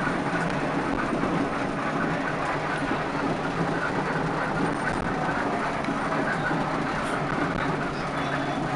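A heavy vehicle running, a steady rumble with a low engine drone and road noise that holds even throughout, with no horn sounding.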